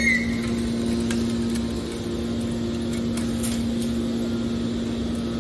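Hydraulic scrap metal baler running with a steady hum at one pitch and a few faint clicks.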